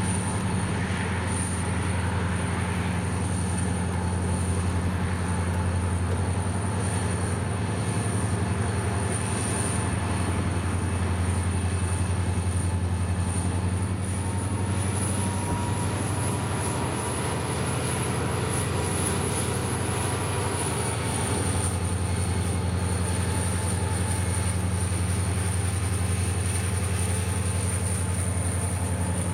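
EMD SD40-2 diesel-electric locomotives, turbocharged 16-cylinder EMD 645 engines, running as the consist moves slowly through the yard: a steady low engine drone with a thin high whine that rises a little around the middle and settles back about three-quarters of the way through.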